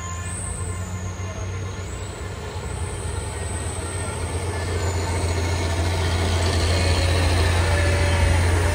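Diesel engines of two loaded Mitsubishi Fuso Canter light trucks running hard as they climb a hill, with a steady low rumble that grows louder as they approach.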